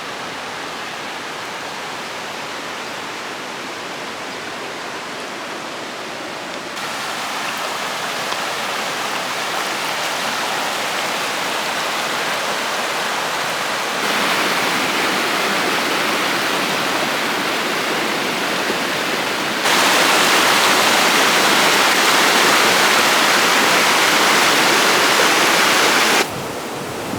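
Rushing river rapids: a steady roar of white water. It comes in several stretches that jump abruptly louder a few times and drop back near the end.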